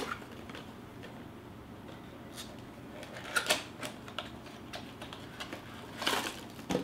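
Cardboard packaging being handled: a few light clicks and rustles as a cardboard insert is lifted out of a box, the loudest about halfway through and again near the end.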